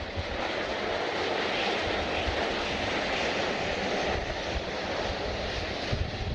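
Jet airliner's engines passing at an airport, swelling over the first couple of seconds, holding, then easing off, with wind buffeting the microphone.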